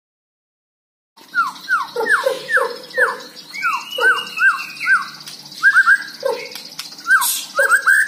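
White-rumped shama singing: a run of short whistled notes, each sliding down in pitch, about three a second, with one longer arching note near the middle. The song starts about a second in.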